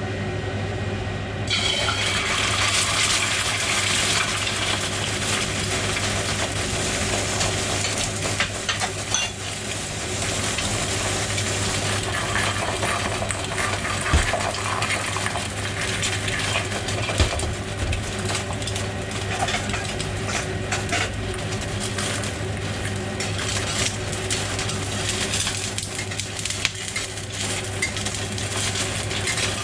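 An egg sizzling and crackling in hot oil in a Buffalo 5-ply stainless steel wok. The sizzle starts about a second and a half in and stays steady, with a few sharp metal clinks from a spatula against the wok and a steady low hum underneath.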